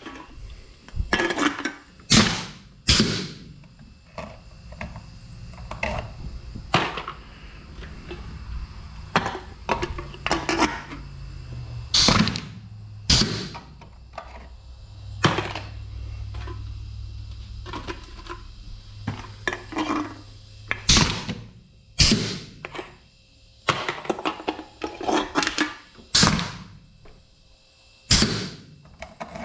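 Homemade pneumatic can crusher being worked again and again: a dozen or more sharp clanks and knocks as the air cylinder's ram is fired down onto aluminium cans and the cans are loaded and knocked out of the steel frame. A low steady hum runs through the middle of the stretch.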